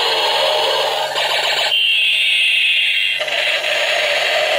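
Battery-powered light-up toy helicopter playing its built-in electronic siren sound effect: alarm-like tones that glide, switch to a steady high tone a little under halfway in, and turn back to a warbling pattern after about three seconds.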